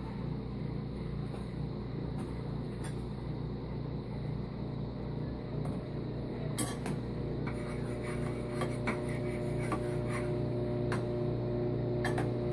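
A steady appliance hum, with light clicks and knocks of a frying pan and kitchen utensils being handled on the counter and stove from about six and a half seconds in.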